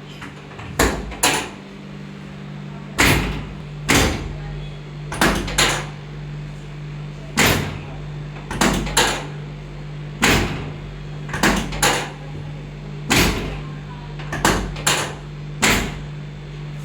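Hands striking a patient's body during a chiropractic-style full-body treatment: about sixteen sharp smacks, often in quick pairs, every one to two seconds. A steady low hum runs underneath.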